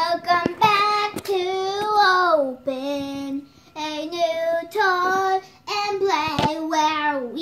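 A child singing in a high voice, a run of long held notes with short breaks between them, several sliding down in pitch at their ends.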